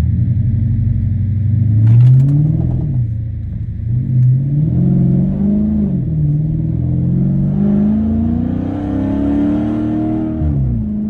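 Chrysler 300 SRT8's 6.4-litre Hemi V8 under hard acceleration: the engine note climbs, drops sharply twice as it shifts up, then climbs for a long stretch before the pitch falls away as the throttle is released near the end.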